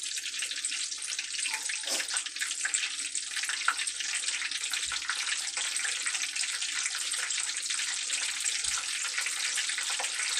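Crab egg rolls frying in hot oil in a skillet: a steady, dense crackle and sizzle.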